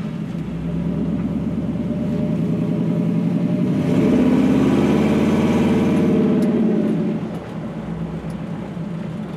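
A 1956 Ford pickup's V8, which the dealer has been told is an LS6, pulling under acceleration, heard from inside the cab. The engine note climbs over the first few seconds, is loudest around the middle, then drops back to a lower, steadier note about seven seconds in.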